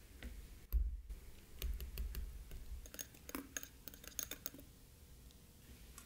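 Wire whisk clicking against a small glass bowl while stirring batter into melted butter: a low thump about a second in, then a quick run of light clicks and taps.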